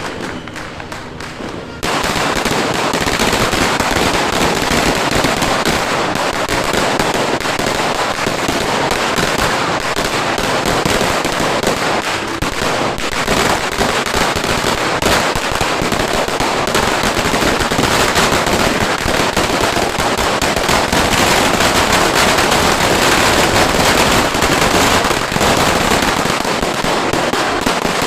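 Dreamlight 'sawa' firecracker belt of 3,000 rounds going off, a dense and continuous rapid crackle of pops that starts suddenly about two seconds in.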